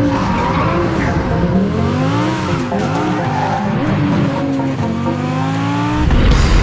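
Lamborghini Huracán V10 engine revving hard, its pitch climbing and falling several times, with tyre squeal from the car being driven sideways. A loud deep rumble comes in near the end.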